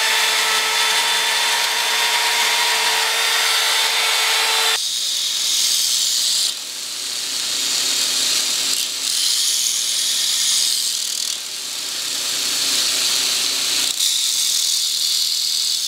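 Power grinder sharpening the tines of a forged steel fork. It runs steadily with a constant whine, then about five seconds in the grinding changes and repeatedly eases and comes back as the steel is worked against it.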